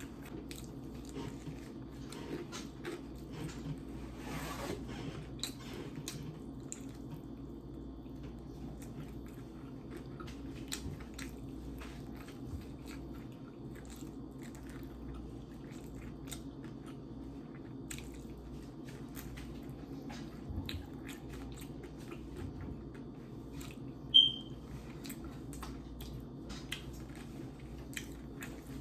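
Close-up eating: chewing and biting with many small wet mouth clicks, over a steady low background hum. Once near the end, a single short, high-pitched squeak stands out above everything else.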